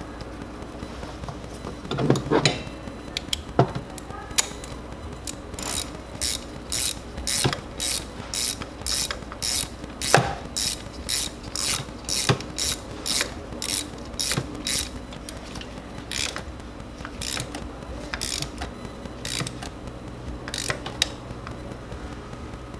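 Hand ratchet wrench clicking in a steady run of short back-swings, about two a second, then slowing and stopping near the end, after a few knocks of tools early on.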